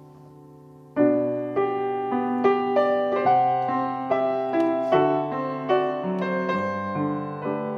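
Petrof grand piano played solo. A held chord dies away, then about a second in a new phrase starts: a slow melody of notes struck about twice a second over sustained bass notes.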